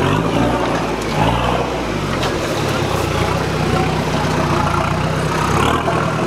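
Jeep Cherokee engine revving in repeated rises and falls, then running more steadily, as the 4x4 pulls away over muddy grass.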